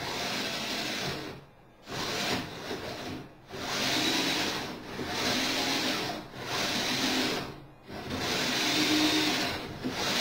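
Two small synchronized electric winch motors whirring in surges, cutting out briefly about every one and a half seconds, their speed set by the tilt of a hand-moved kite pole.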